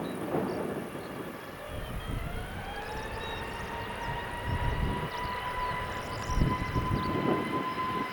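Airbus A321neo jet engines spooling up to takeoff thrust: a whine rising in pitch over a couple of seconds, then holding steady over a low rumble.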